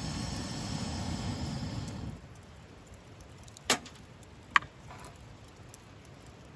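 Wood campfire: a rushing hiss for the first two seconds, then two sharp cracks from the burning wood about a second apart, the second the louder, among faint crackles.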